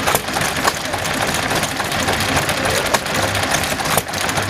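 Ruston & Hornsby horizontal stationary engine running, a steady mechanical clatter with a few sharp knocks.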